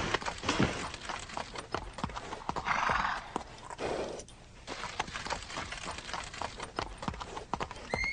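A horse's hooves clopping and stamping irregularly on a hard floor, with a short breathy noise about three seconds in.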